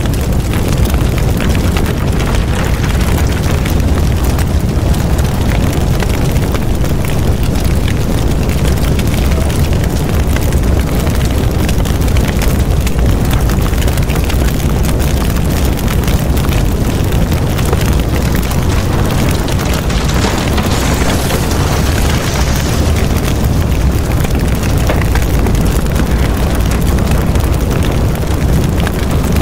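A large fire burning through timber, bamboo and sheet-metal kiosks: a steady low rumble with constant crackling.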